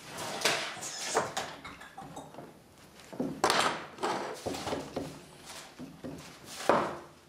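A rag rubbing over a metal flange bearing housing and small tools being handled on a wooden workbench: irregular scuffs and rustles, with a longer one about halfway through and the loudest just before the end.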